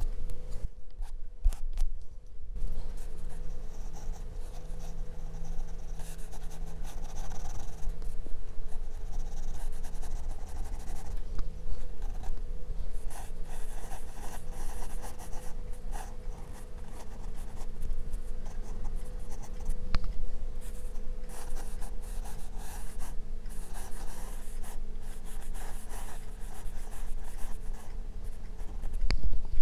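Graphite pencil sketching on a paper drawing pad: continuous quick, scratchy strokes of outline and shading, with a short pause about a second in.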